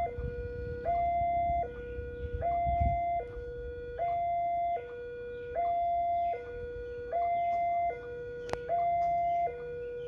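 Electronic warning alarm of a railway level crossing, alternating steadily between a higher and a lower tone, each held under a second, signalling that the barrier is down and a train is approaching. A low rumble sounds under it for the first three seconds.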